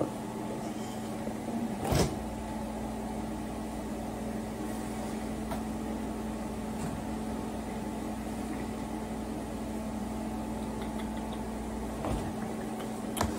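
Microwave oven running: a click about two seconds in as it starts, a steady low hum for about ten seconds, then it stops near the end.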